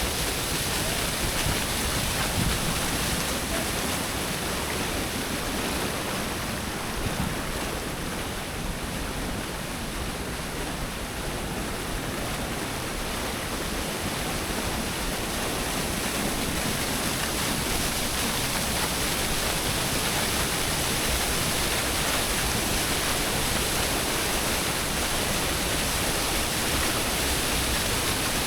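Waterfall crashing into its pool, a steady, even rush of falling water.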